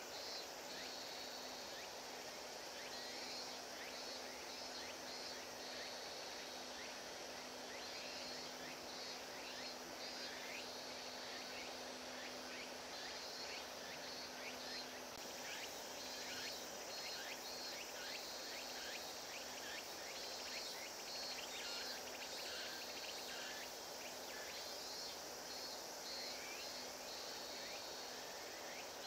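Outdoor ambience of insects chirping in repeated pulsing bouts, with scattered short high chirps, over a faint steady low hum that weakens about halfway through.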